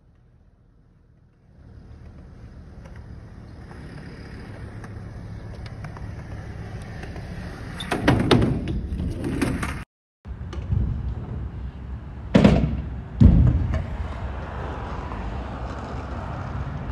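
Stunt scooter wheels rolling on skatepark concrete, growing louder as the rider comes closer, with sharp clacks of the scooter striking the ground. The sound stops dead for a moment about ten seconds in, then two loud knocks follow a second apart as a rider carves through a concrete bowl.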